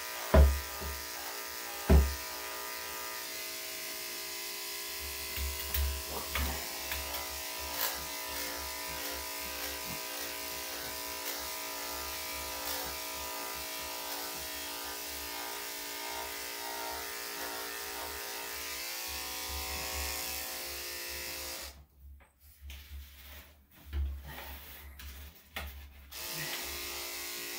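Electric dog grooming clippers running with a steady buzz as they shave a Shih Tzu's body coat, with a few short bumps from handling. The clippers stop about 22 seconds in, with a few knocks during the pause, and start again near the end.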